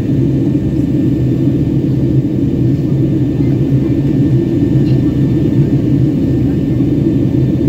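Jet airliner cabin noise heard from a window seat during the descent toward landing: the engines and the airflow past the fuselage make a steady low roar with a constant hum under it.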